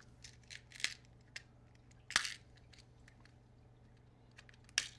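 Hands handling small screws and kit parts: a few scattered sharp clicks and light rustling, the loudest click about two seconds in and another near the end.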